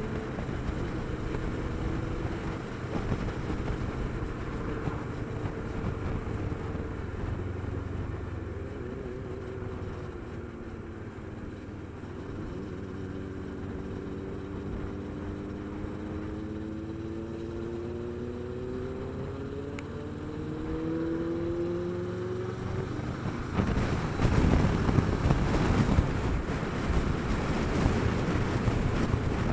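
Kawasaki Versys 650 parallel-twin engine running on the road, its pitch sagging as the bike eases off and then climbing steadily as it accelerates. From about 23 seconds in, wind rushing over the microphone at speed grows loud and becomes the main sound.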